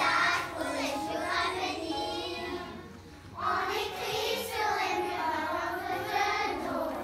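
A group of children singing together on stage, with a short pause between phrases about three seconds in before they carry on.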